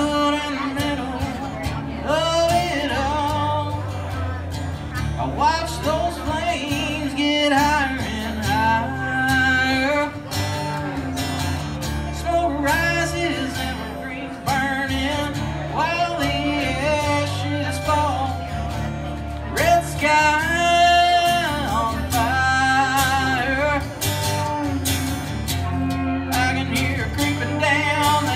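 Live country music: steel-string acoustic guitar strummed under a pedal steel guitar, whose sliding notes glide up and down.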